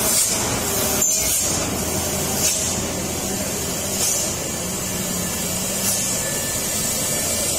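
Loaded diesel trucks running slowly on a steep hairpin, their engines a steady low drone, with short sharp hisses of air brakes letting off air every second or two.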